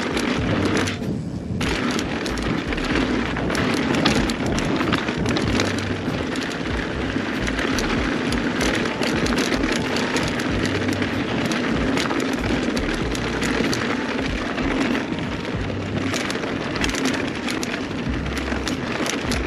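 Mountain bike riding over a rough, loose dirt trail: a steady crunch of tyres on gravel, with many sharp rattles and knocks from the bike as it hits bumps.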